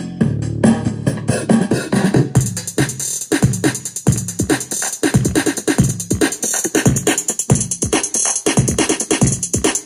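Music with an electronic drum beat played through a Tonor Bluetooth PA speaker. A brighter, busier beat comes in about two seconds in.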